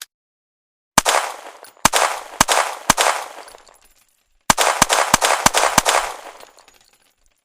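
Pistol shots as a sound effect: four single shots about half a second apart, then after a pause a quick run of about seven shots, each with a ringing echo tail that dies away.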